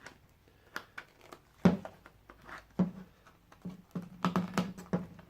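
Hard plastic clicks and knocks from handling a laptop battery pack while its casing is worked apart to reach the 18650 cells: one sharp knock about a third of the way in, and a quicker run of small clicks near the end.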